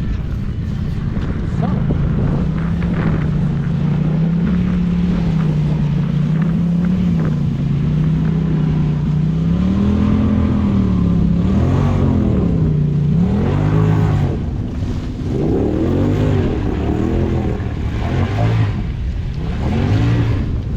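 Polaris RZR Pro XP side-by-side engine running at a fairly steady pitch for about ten seconds, then revving up and down again and again.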